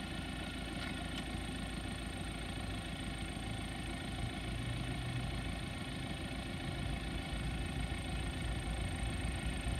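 Diesel engine of a BR232 'Ludmilla' locomotive running steadily at low power as it creeps forward while shunting, growing slightly louder near the end.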